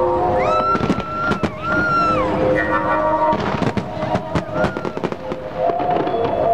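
Fireworks display going off: many sharp bangs and crackles from shells and fountains, over music with sustained notes and a held tone that glides up and down.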